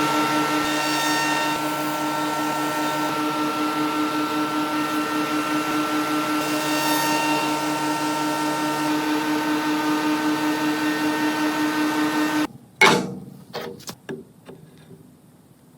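Wood shaper running with a steady, pitched whine that cuts off abruptly near the end, followed by a sharp knock and a few lighter clunks.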